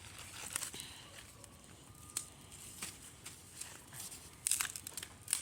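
Small campfire crackling with irregular snaps and pops, a cluster of them about four and a half seconds in.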